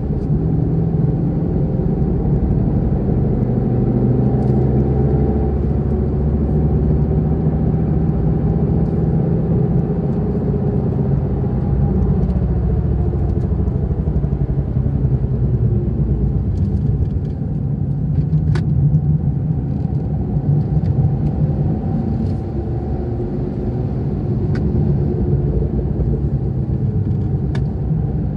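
Holden Commodore SS V8 engine heard from inside the cabin at speed on a racetrack, its revs rising and falling as it pulls down the straights and eases off for corners, with steady road and tyre noise underneath.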